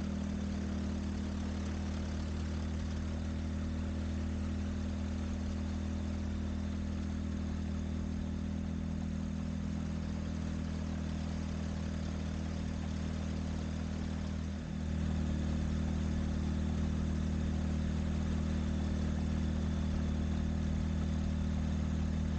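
Light-aircraft piston engine of a Virus SW ultralight running steadily at low power, with a small step up in level about two-thirds through.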